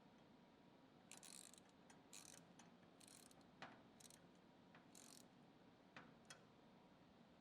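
Faint ratchet wrench clicking in short runs about once a second, five times, with a few small metallic clicks, as fasteners are tightened to mount the filter assembly on its bracket.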